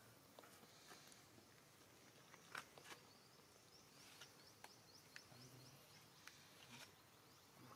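Near silence: faint outdoor ambience with scattered soft clicks and, through the second half, a quick run of faint high chirps.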